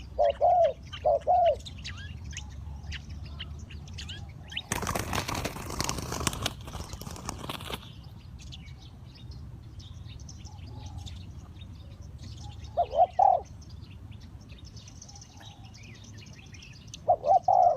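Spotted dove cooing in short low phrases, a couple of notes about thirteen seconds in and more near the end, over faint chirping of small birds. About five seconds in, a loud rustling burst lasts about three seconds.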